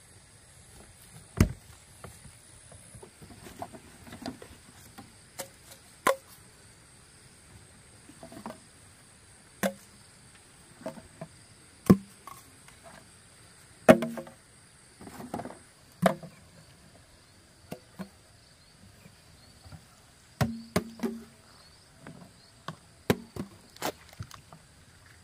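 Irregular sharp knocks and clatter, one every second or so and bunched around the middle and near the end. Under them runs a steady high buzz of insects.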